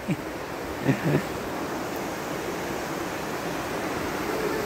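Steady rushing noise that grows slightly louder, with a couple of brief faint voice sounds about a second in.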